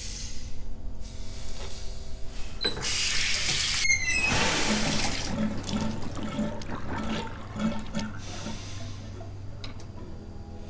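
Water running from a tap into a basin and down the drain, loudest a few seconds in and then tailing off, over a low steady music drone.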